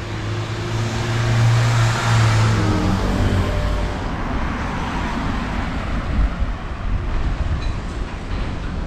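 A road vehicle driving past close by: engine hum and tyre noise swell over the first couple of seconds, the engine note drops in pitch as it goes by, then steady traffic noise carries on.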